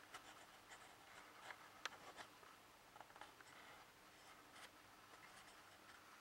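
Near silence with faint scratchy ticks and rustling, the sharpest tick about two seconds in.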